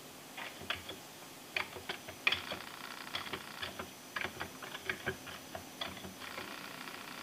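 Commodore 64 keys clicking as the last few characters of a load command are typed and return is pressed. A floppy disk drive then starts running with a steady whir and a series of clicks as it searches for and loads the program.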